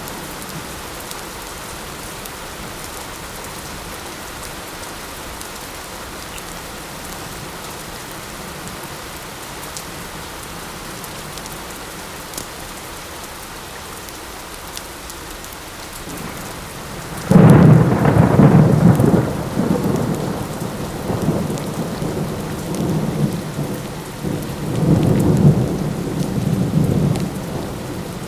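Steady light rain, then a sudden loud thunderclap about 17 seconds in that rolls on as rumbling thunder and swells again near the end.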